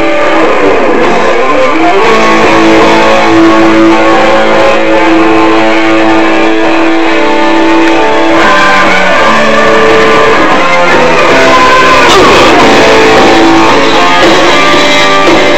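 Loud rock music led by electric guitar.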